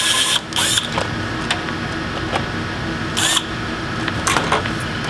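Screwdriver backing screws out of the plastic back housing of a Cisco 7960 IP phone: a few short scraping strokes with small clicks in between.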